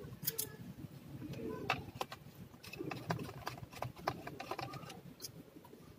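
Scattered light clicks and taps of a small tool and fingers working on the plastic underside of an opened Acer laptop, irregular and a few per second.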